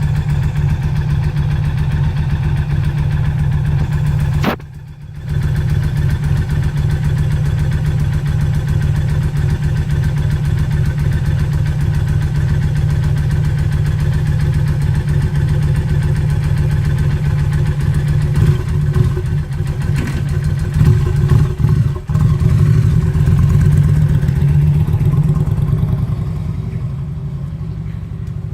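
Kawasaki Drifter's V-twin engine running through its original exhaust, mostly idling with a steady low beat. The sound briefly drops out about four and a half seconds in, turns uneven and louder around twenty seconds in, and eases off slightly near the end.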